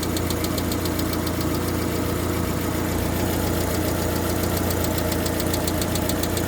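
Car engine idling with a rapid, even metallic ticking from the valve train, which the owner puts down to the hydraulic lifters and suspects comes from too little oil pressure.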